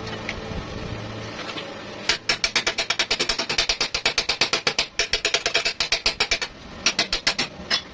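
Fast, even mechanical tapping, about eight sharp strokes a second, starting about two seconds in, pausing briefly, then resuming for a moment near the end.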